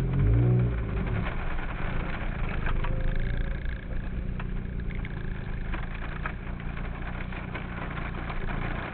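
Car engine and road noise heard from inside the cabin while driving, a steady low drone with a few faint ticks. A voice is heard briefly at the start.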